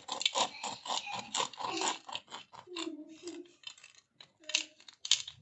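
Knife sawing through the crisp breadcrumb crust of a deep-fried bread roll: a rapid run of crackling crunches that thins out after about two and a half seconds, with a few more crunches near the end.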